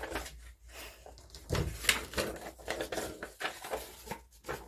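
Scissors snipping a slit into folded paper, with paper rustling as it is handled. A dull knock sounds about a second and a half in, the loudest moment.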